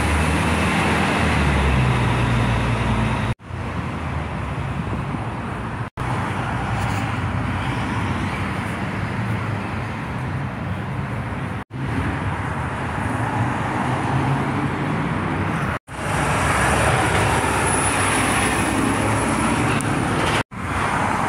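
City street traffic noise: a steady wash of passing vehicles, with a low engine rumble strongest in the first few seconds. The sound cuts out briefly several times.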